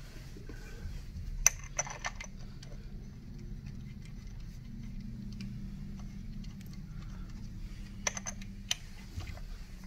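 Sharp metallic clicks and taps as the burr carrier plate of a Nuova Simonelli MDXS grinder is set back in place and its screws are dropped into their holes. A cluster of clicks comes about a second and a half in, and two more near the end, over a faint steady low hum.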